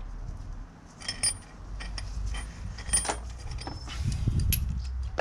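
Small metal parts clinking and rattling as they are handled, with sharp ringing clinks about a second in and again near three seconds, and a rustle of handling near the end.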